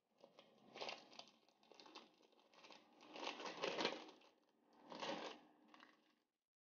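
Thin plastic film wrapper of a processed cheese slice crinkling as it is peeled off by hand, in a run of uneven rustling bursts that are loudest a little past halfway.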